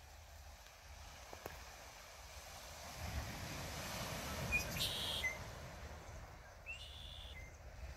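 Wind buffeting the microphone, a low rumble that swells about three seconds in and eases off after five, with a few short high bird chirps near the middle and again near the end.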